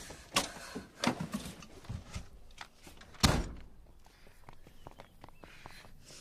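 A series of knocks and thuds, the loudest a heavy thud about three seconds in, followed by a run of fainter light clicks.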